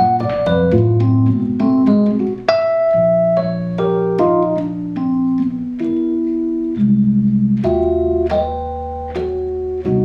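Roland FR-3xb V-Accordion, a digital button accordion, played in a free jazz improvisation: quick, separate keyboard-like notes picked out on the treble buttons with both hands, over held low notes.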